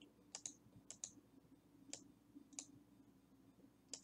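Computer mouse clicking: about seven faint, sharp clicks, several in quick pairs.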